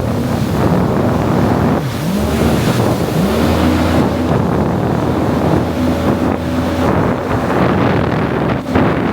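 Personal watercraft (jet ski) engine running under way, its pitch dropping and climbing back twice as the throttle is eased and opened again, with water rushing and wind buffeting the microphone.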